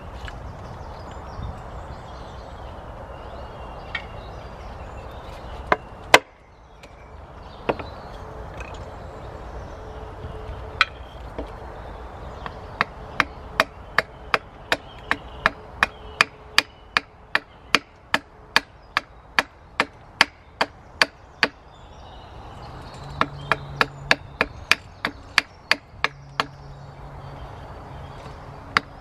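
Wood being chopped: a few scattered sharp strikes, then from about halfway through a steady run of about two or three chops a second, with a brief pause.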